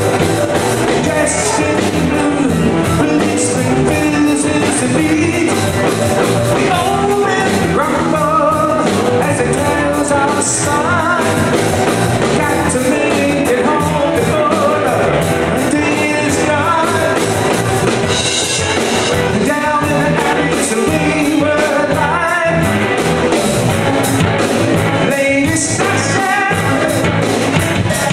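Live southern rock band playing loudly: electric guitars, bass guitar and drum kit, with a singer.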